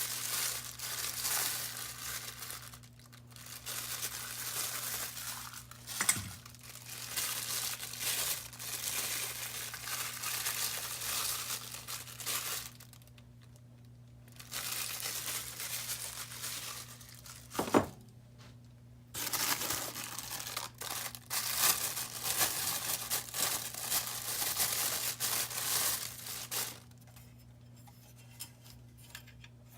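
Packing material being unwrapped, crinkling and tearing in stretches with short pauses, and two sharp knocks about twelve seconds apart.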